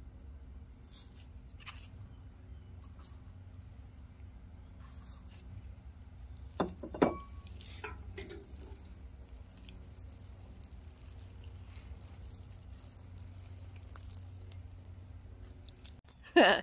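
A hand patting and pressing potting soil down in a planter over a buried tomato slice: faint scattered ticks and crumbles over a low steady rumble, with two brief louder knocks about seven seconds in.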